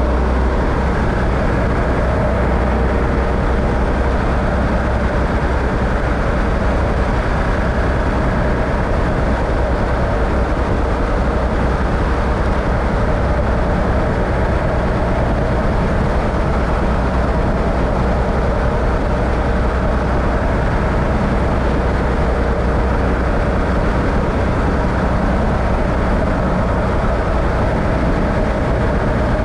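A vehicle driving at a steady speed: an unbroken drone of engine and road noise, heaviest in the low end, with faint steady tones and no change through the stretch.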